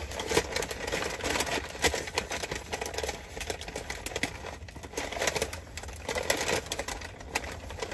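Paper fast-food bag rustling and crinkling in irregular bursts as a hand rummages inside it.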